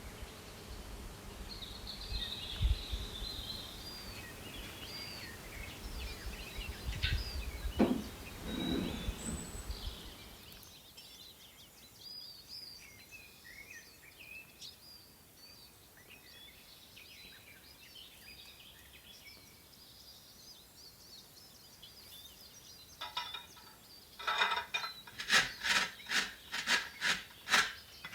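Small birds chirping over a low outdoor ambience, which turns quieter about ten seconds in. Near the end come a run of loud, even scraping strokes, about two a second, like something rubbed or grated against a hard surface.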